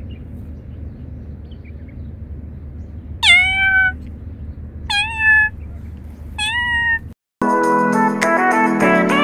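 Domestic cat meowing three times, short calls about a second and a half apart, over a steady low background rumble. Near the end the sound cuts out briefly and music starts.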